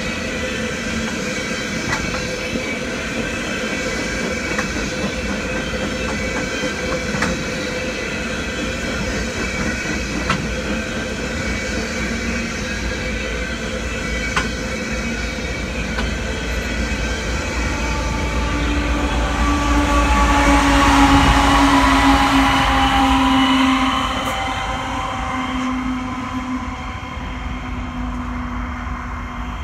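Empty flatcars rolling past on the rails, with occasional sharp clicks of wheels over the track. From about 18 seconds in, the Ferromex GE Evolution-series distributed-power locomotive passes: its diesel engine grows louder, then drops in pitch as it goes by and fades.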